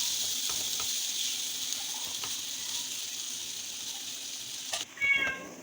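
Beetroot paste frying in oil with tomatoes and spices in a pan: a steady sizzle that slowly fades and stops suddenly near the end, followed by a brief squeak.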